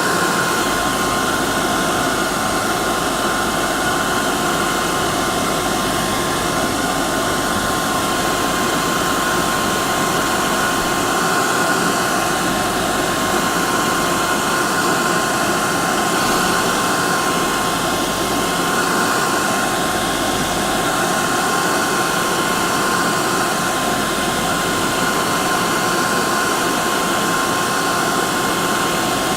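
Hair dryer running continuously: a steady rushing blow of air with a constant high motor whine.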